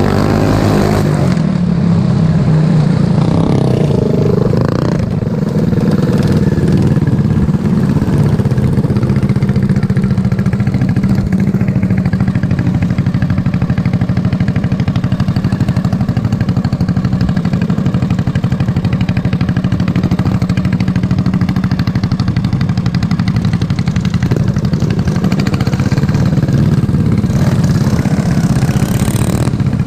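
Racing lawn mower engine running hard. Its pitch shifts in the first few seconds, then holds steady at a constant speed.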